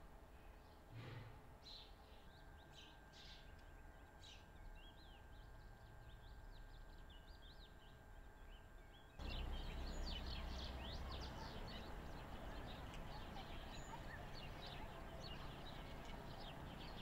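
Many small birds chirping in quick short calls over a steady background hiss. About nine seconds in, the background suddenly gets louder and the chirping denser.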